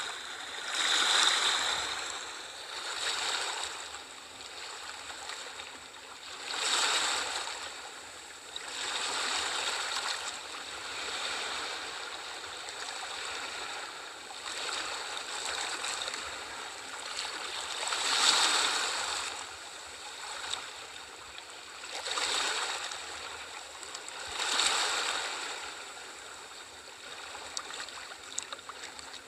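Sea waves washing in, in repeated surges every few seconds over a steady hiss of moving water.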